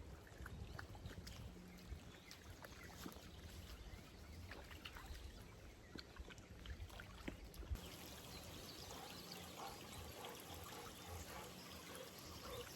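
Small creek trickling faintly, with a few light clicks scattered through it.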